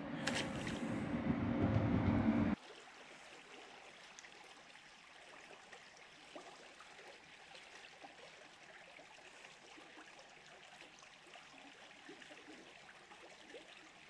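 A loud rushing noise swells for about two and a half seconds and is cut off suddenly. A faint, steady outdoor hiss follows, with a few small ticks.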